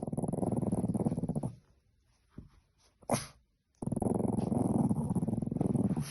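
Boston terrier puppy making long, rattling growl-like rumbles, twice, with a short sharp noise in the pause between them.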